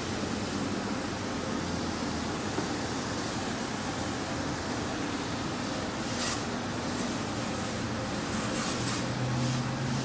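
A D&S self-serve car wash pressure wand spraying spot-free rinse water onto a car's rear bumper: a steady hiss of spray with a low hum underneath.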